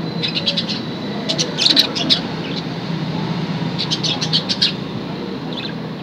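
Pet budgerigars chirping and chattering in quick bursts of short high notes, three main bursts and a brief one near the end, over a steady low hum.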